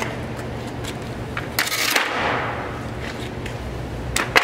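Tools being handled and set down on a concrete floor: a cordless impact wrench and a plastic socket case clacking. There is a loud clatter about two seconds in and two sharp knocks near the end, each echoing in a large shop.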